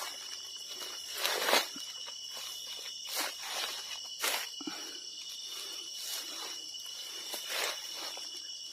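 Crickets chirring steadily at two high pitches, with irregular footsteps or rustles about once a second as someone walks through vegetation.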